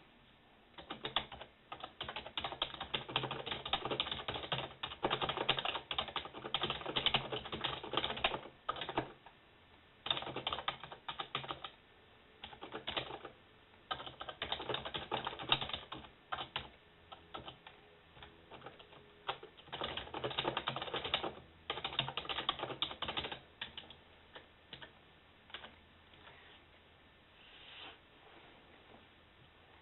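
Typing on a computer keyboard: runs of rapid key clicks lasting a few seconds each, broken by short pauses, thinning to a few scattered keystrokes near the end.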